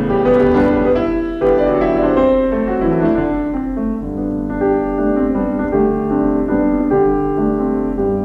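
Solo piano music: a melody of struck notes that ring on and overlap above held lower notes.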